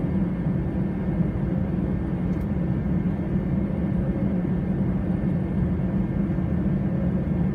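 Airbus A320 jet engines at ground idle heard inside the passenger cabin: a steady low hum with a faint high whine, unchanging throughout.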